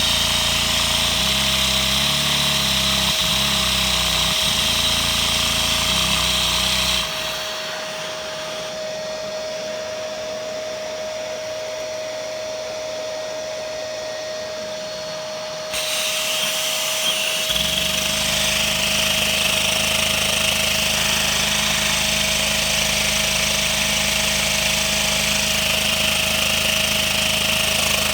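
Lego single-cylinder dual-action vacuum engine running on suction: a steady, loud mechanical whirring with a constant whine. About seven seconds in it drops quieter and thinner, then comes back to full strength about eight seconds later.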